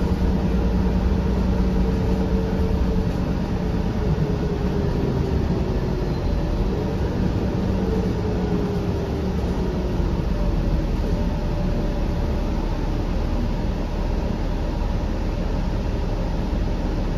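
Cummins ISL9 diesel of a 2013 Gillig BRT transit bus heard from inside the passenger cabin while the bus is under way: a steady engine and road rumble, with a faint whine that slowly falls in pitch over the first ten seconds or so.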